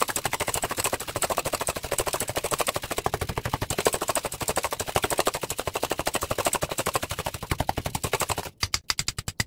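Wire whisk beating eggs in a stainless steel bowl: fast, even clicking of the wires against the metal, about ten strokes a second. The strokes break up near the end and stop.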